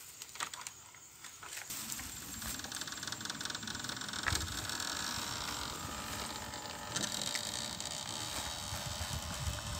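Rustling and rattling of electrofishing gear being handled in a plastic basket: a battery and its cable shifted and connected by hand, a steady crackly clatter from about two seconds in.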